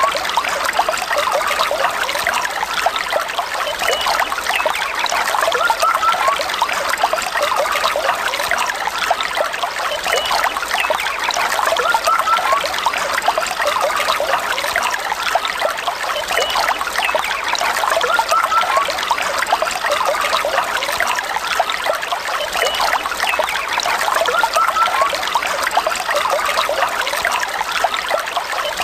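Small stream flowing over rocks, a steady rush of water.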